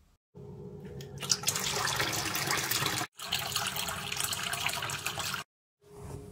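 A chrome mixer tap running into a bathroom basin, water splashing onto the plughole in a steady rush. The rush grows louder about a second in, as the basin fills to soak a wool blanket, and cuts off abruptly twice.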